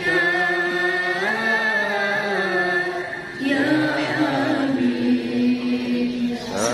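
A woman's voice reciting the Quran in the melodic tilawah style (a qoriah) through a handheld microphone, drawing out long, ornamented held notes. About three seconds in she pauses briefly for breath. She then starts a new phrase that settles on a long, lower held note.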